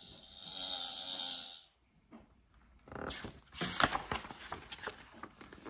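A recorded bee buzz played from a toy sound-book's button pad, a steady drone that stops about a second and a half in. Then a paper page of the book is turned, a loud rustle of paper.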